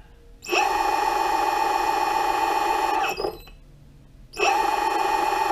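Electric skateboard brushless motor, driven by a VESC speed controller, spinning up under throttle from a phone app's remote. It runs with a steady high-pitched whine and cuts off about three seconds in, then spins up again over a second later.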